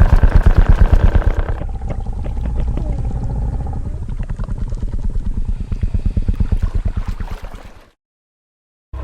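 Designed Tyrannosaurus rex vocalization: a deep, rumbling growl with a rapid fluttering pulse, a higher tone layered over it for the first second and a half, fading out about a second before the end.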